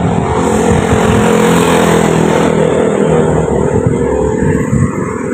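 Motorcycle engine passing close by, loudest over the first couple of seconds, then fading as it moves away.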